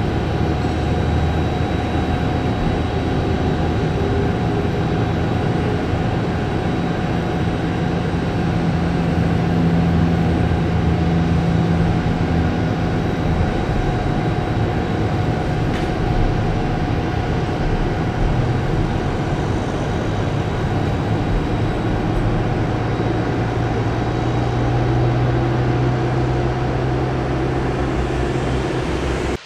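Airliner turbofan engine running steadily on the ground, a constant jet whine over a low rumble and hum.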